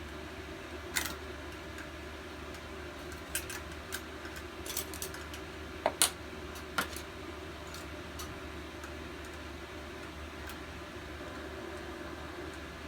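Scattered light metal clicks and taps from hand tools on a small engine as the screws holding its carburetor are taken out. The loudest click comes about six seconds in, and after that only a steady low hum is left.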